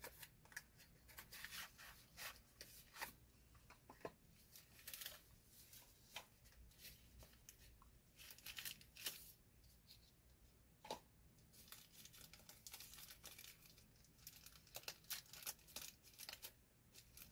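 Faint crinkling and tearing of packaging as a small cardboard box is opened by hand and the wrap around a multi-tool is pulled apart, with scattered small clicks and rustles.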